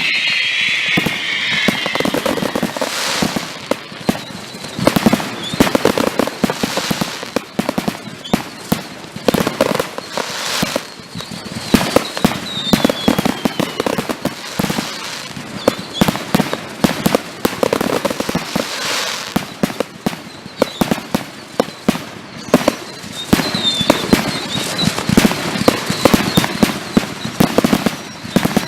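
Fireworks finale: a dense, continuous barrage of bangs and crackling, with a whistle at the very start and a couple of short whistles later on.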